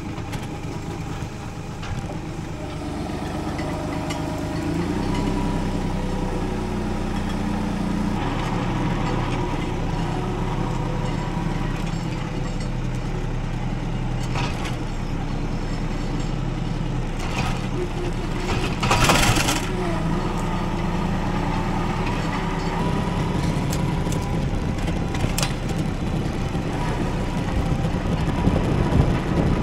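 A tractor's engine running steadily, speeding up about five seconds in, while a grapple crushes brush and wood, with occasional cracks and snaps; the loudest crash comes about nineteen seconds in.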